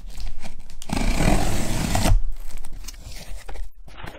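Packing tape being torn off a cardboard shipping box, a harsh tearing noise lasting about a second, followed by quieter handling of the cardboard flaps.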